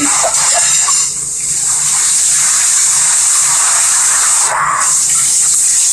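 Water rushing in a loud, steady gush, with a slight dip about a second in.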